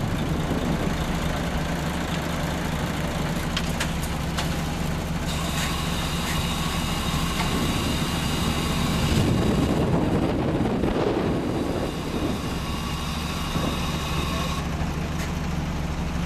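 Mercedes-Benz Actros 4143 tipper truck's diesel engine running steadily while the raised body tips out a load of soil, with a thin high whine from about five seconds in until shortly before the end.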